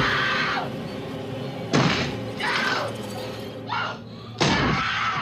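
Two axe blows smashing into a wooden door, about two and a half seconds apart, each followed by a woman screaming in terror. Film score music plays underneath.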